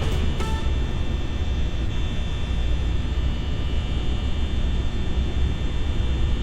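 Electric fan running: a steady low rumble of moving air and motor, with a faint steady high whine.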